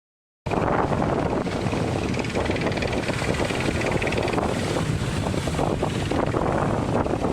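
Strong wind buffeting the microphone over the wash of the sea; it cuts in suddenly about half a second in and then stays steady and loud.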